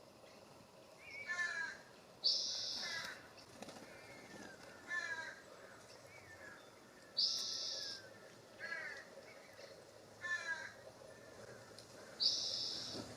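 A jay giving harsh, raspy calls over and over, one every second or two. Three times, about five seconds apart, a short loud hissing buzz sounds over them.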